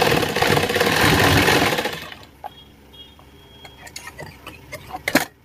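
Industrial sewing machine running steadily as it stitches a seam in the fabric, for about two seconds before stopping. After it stops there are scattered soft clicks and one sharp knock near the end.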